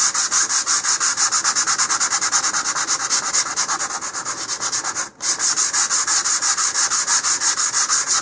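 Sandpaper wrapped round a small cylinder sanding dried wood-filler fillets at a fin root on a rocket body tube, in rapid back-and-forth strokes several times a second. The strokes break off briefly about five seconds in.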